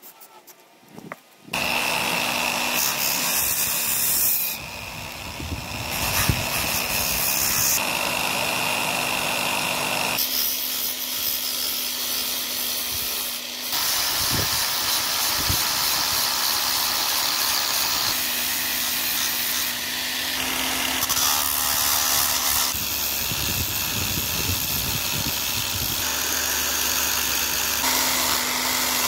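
Angle grinder running under load as it grinds and shapes a wooden axe handle, starting about a second and a half in. The motor hum holds steady while the grinding noise shifts every few seconds as the disc works the wood.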